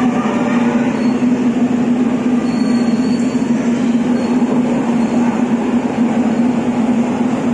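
Steady, loud mechanical drone with a constant low hum running unchanged throughout.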